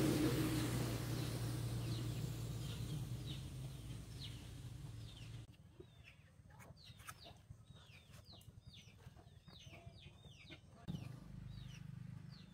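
A low hum with hiss fades and cuts off about five seconds in. After that, chicks peep in short falling chirps, several a second.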